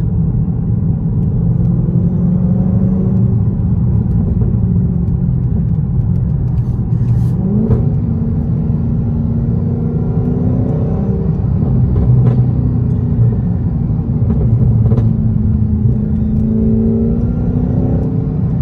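Inside the cabin, a Dodge Charger Hellcat's supercharged 6.2-litre V8 runs at low road speed under light throttle, its pitch rising about seven and a half seconds in. On the stock airbox the supercharger whine is next to non-existent.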